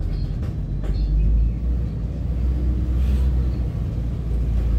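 Double-decker bus driving, heard from inside: a steady low rumble of engine and road noise with a few faint knocks.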